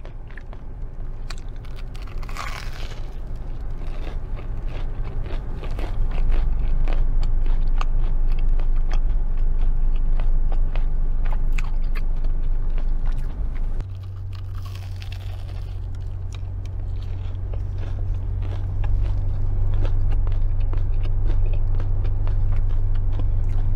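Close-up crunching bites and chewing of a crispy, sugar-coated Korean cheese dog (fried battered mozzarella on a stick), with many sharp crackles, over a low steady hum.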